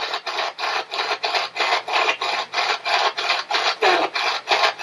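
SB-11 spirit box sweeping through radio stations: a fast, even chop of static, about five bursts a second. About four seconds in, a brief voice fragment breaks through, taken by the investigators for the name "Donnie".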